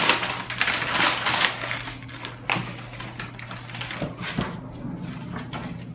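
Packing paper crinkling and rustling as it is pulled out of a cardboard box, loudest for the first two seconds, then lighter rustles with a few sharp clicks.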